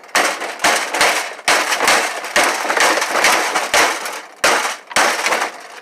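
Repeated sharp blows, about two a second, banging on a dishwasher motor assembly to break the plastic that holds the motor down.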